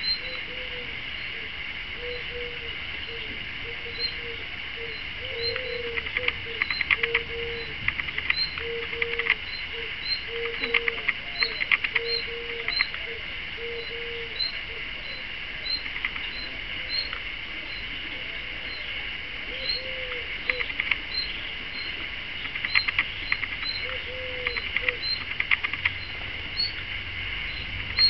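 Common nightingale bathing in a shallow puddle, splashing in short clusters that are the loudest sounds. Behind it, other birds call: a short high chirp about once a second and a low repeated cooing.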